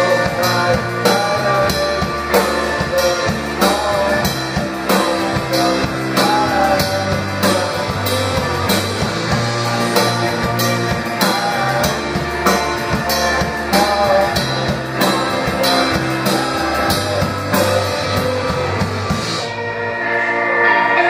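Live alternative rock band playing a full song: a drum kit beating steadily about twice a second under electric guitars and bass. Near the end the drums drop out and the chords ring on.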